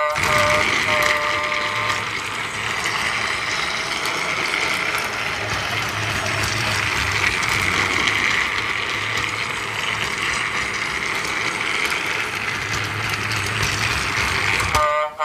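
Toy train's small motor and gears whirring steadily as it runs along its track. A short pitched tone sounds in the first two seconds and again right at the end.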